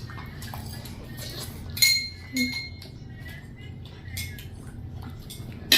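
Cutlery clinking against dishes while eating: light scattered clicks and taps, with one sharper clink just before two seconds in that rings briefly.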